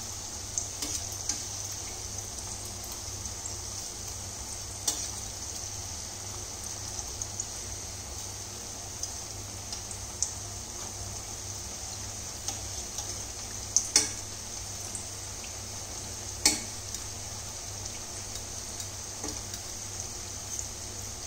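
Potato samosas sizzling steadily as they fry in hot oil in a stainless steel pan. A few sharp clicks of a fork against the pan come as they are turned, the loudest a little past the middle.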